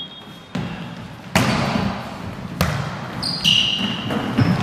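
Volleyball being struck by hand during a rally, with three sharp slaps about half a second, just over a second and two and a half seconds in, each echoing in the gym hall.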